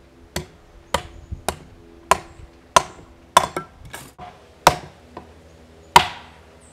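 Collins hatchet splitting small pieces of kindling on a wooden stump: about a dozen sharp knocks, roughly one every half second, the loudest about six seconds in.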